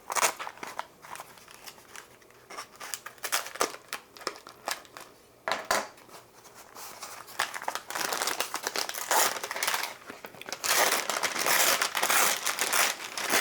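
Shipping packaging crinkling and rustling as a plant is unwrapped by hand: scattered crackles at first, then a denser, louder run of crinkling in the last few seconds.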